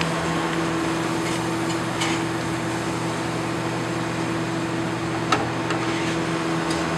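Steady hum of a kitchen ventilation fan, with two light taps, about two seconds in and again past five.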